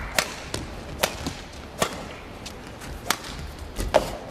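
Badminton rally: sharp cracks of rackets striking the shuttlecock, five strong hits about a second apart, over the steady hum of an arena.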